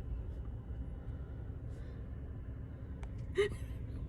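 Low, steady rumble of a Volvo semi truck's diesel engine, heard from inside the cab, with a short vocal sound about three seconds in.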